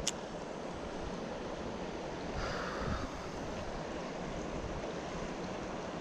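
Creek current flowing steadily, with wind buffeting the microphone; a single sharp click right at the start.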